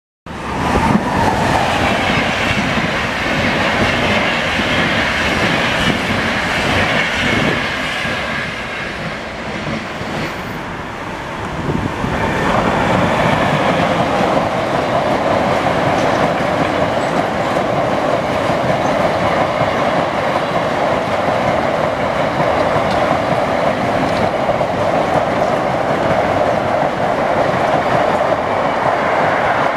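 Freight train of double-deck car-transporter wagons passing at speed, a continuous rumble and rattle of wheels on the rails. It eases a little around ten seconds in, then runs steady and louder from about twelve seconds.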